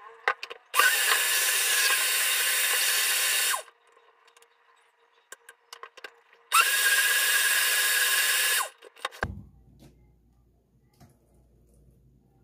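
Countertop blender motor running twice, each run about three seconds long with a steady whine, blending a watery paste; the first run starts just under a second in, the second about six and a half seconds in, and both stop abruptly.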